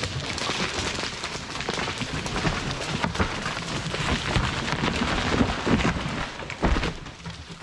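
A tree being felled: dense cracking of wood and branches crashing and rustling through the surrounding trees as it comes down, with a heavy low thump about six and a half seconds in as it lands.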